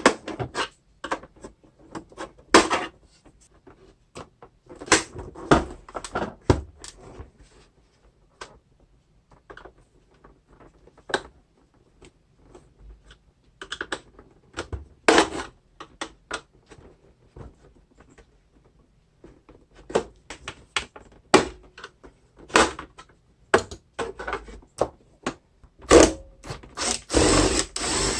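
Irregular clicks, knocks and short scrapes of a vacuum cleaner's housing and parts being handled and taken apart, with a longer scraping rattle near the end.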